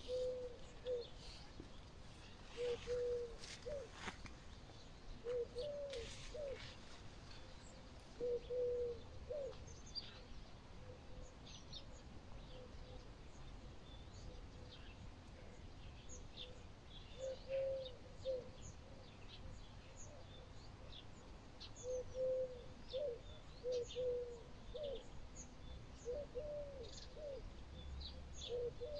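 Outdoor birdsong: a dove cooing low in short repeated phrases every few seconds, with small birds giving brief high chirps throughout.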